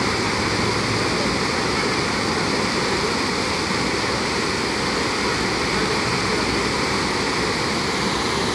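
Fountain water spilling over the rim of a wide stone basin in a curtain of streams and splashing into the pool below: a steady, even rush of falling water.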